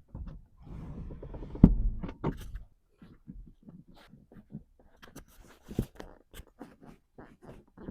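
Sliding rear seat of a BMW F46 Gran Tourer pushed along its rails, a rubbing slide ending in a sharp clunk about two seconds in as it locks, then scattered light clicks and knocks. With anti-squeak felt tape fitted, the squeak is nearly gone and only a faint noise remains.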